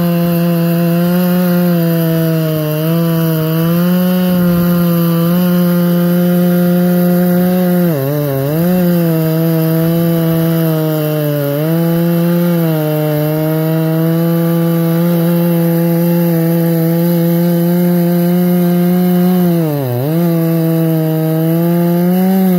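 Husqvarna 3120XP chainsaw, a big single-cylinder two-stroke, running at full throttle while cutting into a large stump. The engine holds a steady high pitch under load, sagging briefly three times as the chain bogs in the wood, then picking back up.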